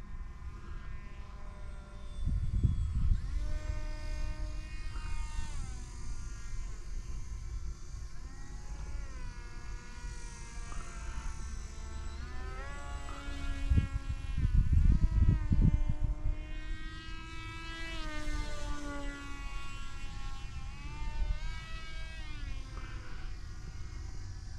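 Small RC foam plane's brushless motor and 6x5 propeller whining overhead, the pitch repeatedly rising and falling as the plane passes and the throttle changes. Wind buffets the microphone in gusts about two seconds in and again around the middle.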